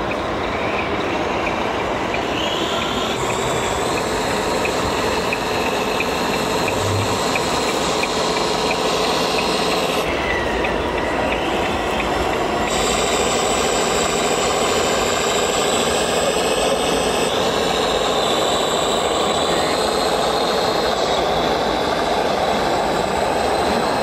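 Electric motors and gearboxes of radio-controlled model trucks and construction machines whining over a steady, dense mechanical din. The whine rises in pitch a few times, and the sound changes abruptly about ten and thirteen seconds in.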